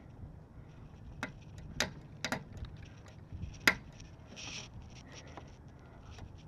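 A few sharp clicks and knocks from handling a front license plate and its bracket mount, the loudest nearly four seconds in, with a brief rustle just after.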